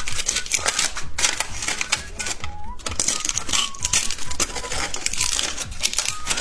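Plastic candy packaging crinkling and crackling in quick, uneven bursts as it is handled and opened, over faint background music.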